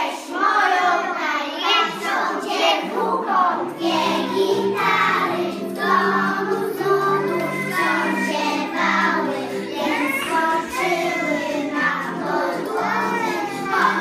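A group of preschool children singing a song together in chorus.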